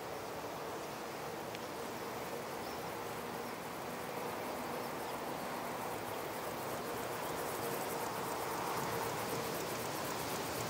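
Summer countryside ambience: a steady chirring of insects over vineyards and fields.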